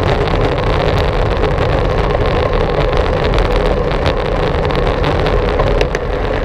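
Steady rush of wind and rolling noise on a GoPro Hero 4 riding along on a moving bicycle, with a few light ticks near the end.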